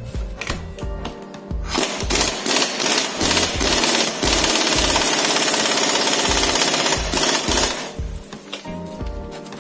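Impact wrench hammering on a nut on the Husaberg 450's engine shaft, starting about two seconds in and running about six seconds before stopping. The nut does not come loose and the shaft spins with it, because the nut has a left-hand thread. Background music with a steady beat underneath, and a few metal clinks before the wrench starts.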